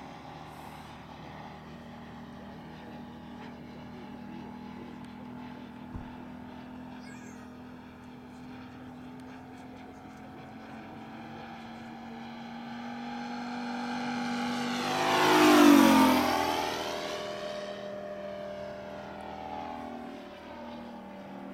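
Moki 180 four-stroke radial engine of a quarter-scale RC Yak-11 model running in flight with a steady drone. About fifteen seconds in, it swells as the plane passes close by, its pitch falling sharply as it goes past, then fades again.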